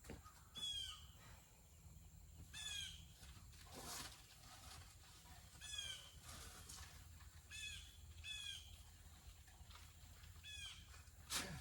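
A bird calling over and over: short calls that fall in pitch, one every one to two seconds, over a low steady hum.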